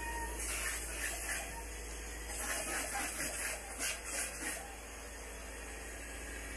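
Polyurethane spray-foam gun hissing in bursts as foam insulation is sprayed: a short burst about half a second in, then a longer broken run of bursts around the middle.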